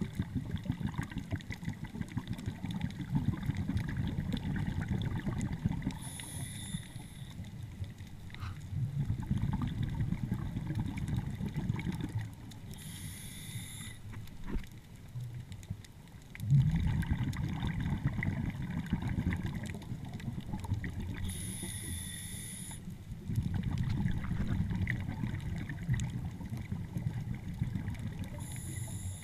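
A diver's breathing heard underwater: four brief hissing inhales, with long bubbling exhales between them.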